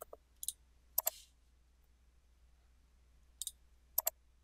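Computer mouse button clicks, a few single and paired, with a pair about a second in and another pair near the end, over a faint low hum.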